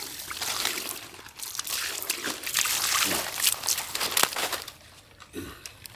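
Water poured from a steel pot splashing over a large fish laid on coconut palm fronds while hands scrub its skin, the wet fronds crackling and rustling under them. The sound drops away about four and a half seconds in.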